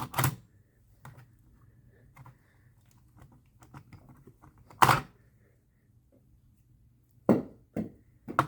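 Sharp clicks and knocks from a plastic smoke alarm being handled: a loud click at the start, another about five seconds in, and several in quick succession near the end, with faint ticking between.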